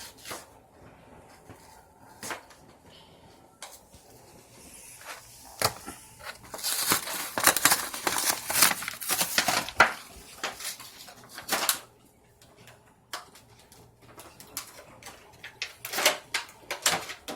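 Plastic toy parts and packaging being handled: scattered clicks and taps, with a dense stretch of crackling and rustling from about six to ten seconds in and another burst near the end.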